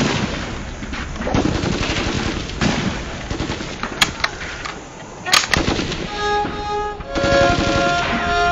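Rapid gunfire rattles on, with two sharp, louder shots about four and five and a half seconds in. About six seconds in, a solo violin starts playing slow, held notes over it.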